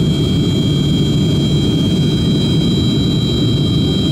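Yakovlev Yak-42D's rear-mounted Lotarev D-36 turbofan engines heard from inside the passenger cabin on approach: a steady low rumble with a constant high whine over it.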